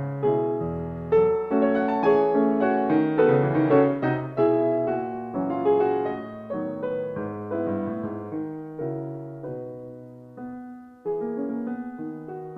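Instrumental piano music: a slow melody over chords, fading down before a new phrase starts strongly about eleven seconds in.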